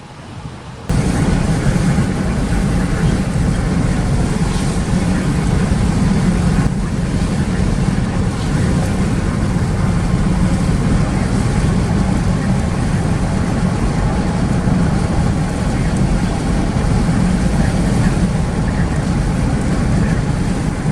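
Road and wind noise inside a moving car, a loud steady rush that starts abruptly about a second in.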